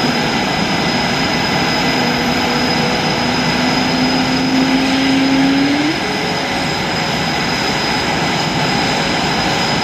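Jet engines of two F/A-18 Super Hornets running on the ground after start-up: a loud, steady rush with a constant high whine. A lower tone rises slowly and cuts off about six seconds in.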